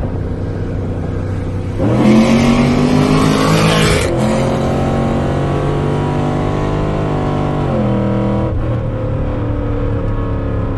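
Car engine going to full throttle in a second-gear pull from a roll, through a rebuilt automatic transmission with a high-stall torque converter. About two seconds in the engine jumps into a loud roar with rising revs. The roar eases after about two seconds while the revs keep climbing, then drop back to a steady cruise about eight seconds in as the throttle closes.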